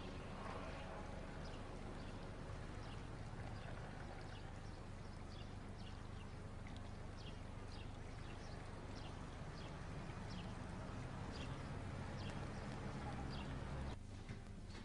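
Footsteps of a man walking, light regular steps at about two a second over a low steady hum.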